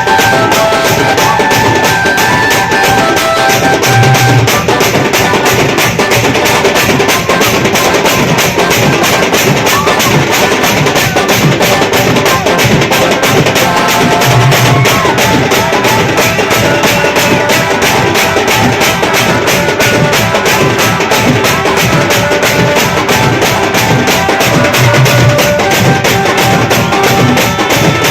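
Village wedding band party playing loud dance music: a fast, steady drum beat under a melody of held notes.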